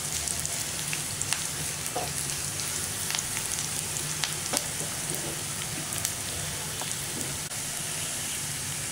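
Sliced onions frying in hot oil with mustard seeds, chana dal and curry leaves, the tempering for a keerai kuzhambu: a steady sizzle with scattered small pops. A wooden spatula stirs the pan briefly at the start.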